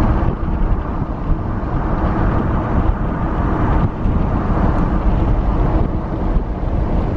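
A car driving along the highway: steady road and wind noise, heaviest in the low end.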